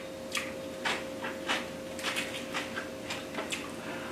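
A person eating stir-fried beef and noodles: a run of short, irregular chewing and mouth sounds, several a second.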